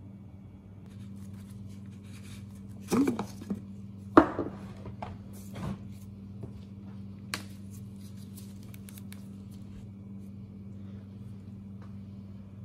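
Workbench handling noise: a few clattering knocks as small metal parts and tools are set down and a plastic-bodied chainsaw is moved on a wooden bench, the sharpest knock about four seconds in, then a few lighter clicks. A steady low hum runs underneath.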